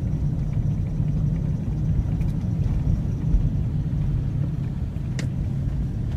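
Steady low engine and road rumble of a Jeep being driven, heard from inside the vehicle, with a single sharp click about five seconds in.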